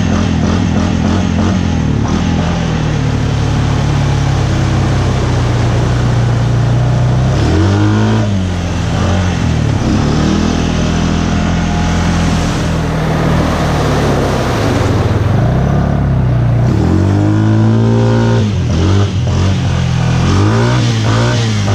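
Honda ATV engine running under throttle through mud and water, its pitch rising and falling several times as the throttle is worked, with a steady splashing wash underneath.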